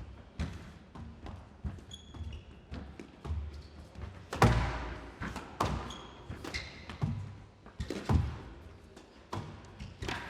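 Squash rally: the ball struck by rackets and smacking off the court walls in irregular sharp knocks, the loudest about four and a half seconds in, with short squeaks from shoes on the court floor.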